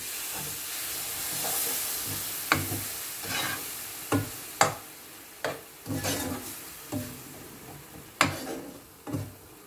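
Warm milk poured into a hot non-stick pan of roasted flour and sugar sizzles, loudest at first and fading over a few seconds. A metal spoon stirs and scrapes the mixture, with several sharp clicks against the pan.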